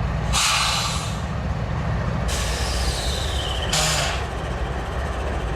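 A Norfolk Southern diesel locomotive, a DC-to-AC rebuild, idling with a steady low rumble. Three loud bursts of air hiss come over it, the middle one the longest and carrying a faint falling tone.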